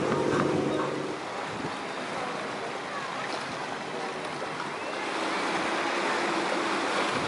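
Ocean surf and wind rushing steadily. A low engine hum fills the first second and then stops.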